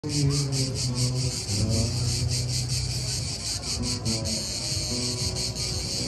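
Cicadas singing: a high, evenly pulsing buzz at about seven pulses a second. Beneath it, low tones shift in pitch every half second or so.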